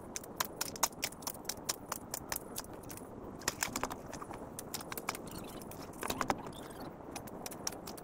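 Hand work in loose fill under a culvert pipe: a metal hand tool scraping and clinking through dirt and stones, several quick irregular scrapes a second, with a couple of dull thuds.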